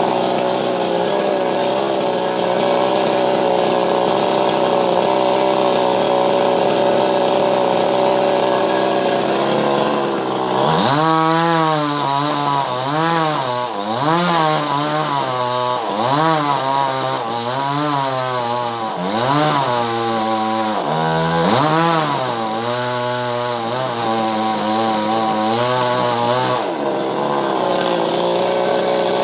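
Chainsaw running at a steady high speed. From about ten seconds in, its pitch swings up and down about once a second as it works through coconut tree wood, then it settles back to a steady pitch near the end.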